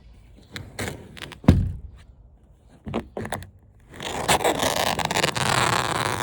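Sharp plastic clicks and knocks as wiring is unclipped from a flat-screen TV's plastic routing clips, then about two seconds of continuous scraping as the wire is dragged out through its zigzag path.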